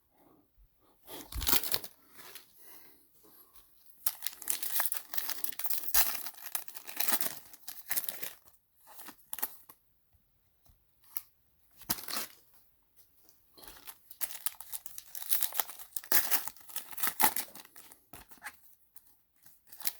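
Trading-card pack wrappers being torn open and crinkled, in irregular bursts of ripping and rustling with short pauses between.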